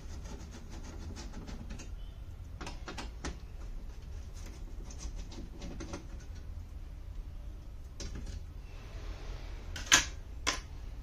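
Small scattered clicks and taps of screws being undone and a TV's casing being handled, with two sharper knocks about ten seconds in, the first the loudest, over a low steady hum.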